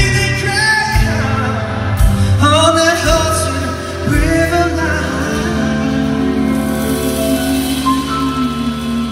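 A man singing live into a microphone with a rock band behind him, in the first few seconds a moving vocal line, then a long held note over sustained band chords.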